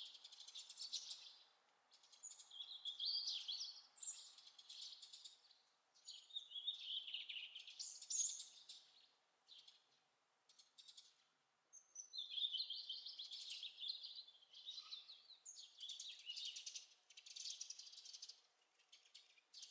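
A European robin singing its autumn song: a run of high, thin warbling phrases, each a couple of seconds long, with short pauses between them.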